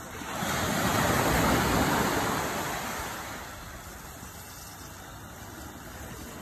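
A wave breaking on the beach and washing up the sand: a rush of surf that swells about half a second in and dies away over the next three seconds, over the steady hiss of the shore break.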